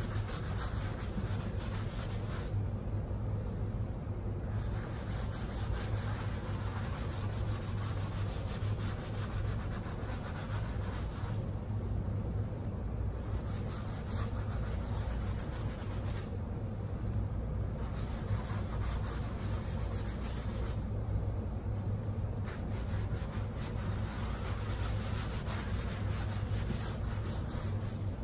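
A sponge scrubbing and dabbing over a coarse marmorino Venetian plaster sample board, a dry scuffing that stops briefly a few times. A steady low hum runs underneath.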